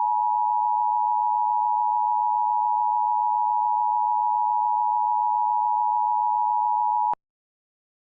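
Emergency Alert System two-tone attention signal: a steady alarm tone of two close pitches, the signal that opens an emergency broadcast alert. It holds even and then cuts off abruptly with a click about seven seconds in.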